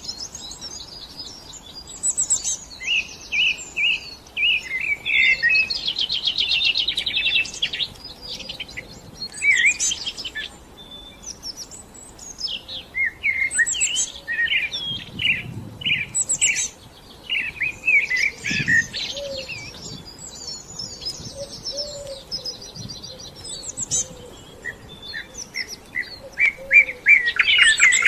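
Birds chirping and singing, with many short calls and quick trills overlapping and coming and going.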